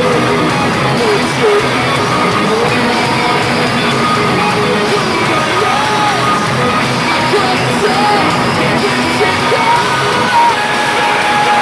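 Progressive metalcore band playing live, with distorted guitars, bass, drums and vocals, heard from the audience in a club hall.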